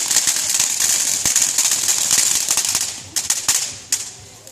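Fireworks crackling: a dense run of rapid sharp pops for about three seconds, thinning near the end to a few scattered pops that fade.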